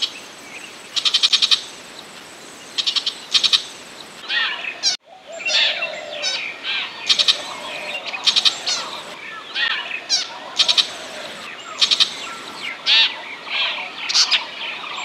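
Burmese shrike calling, as played for a bird-lure recording: bursts of harsh, rapid rattling chatter. After a brief sudden break about five seconds in, a varied run of squeaky chirps and whistles follows, mixed with further rattles.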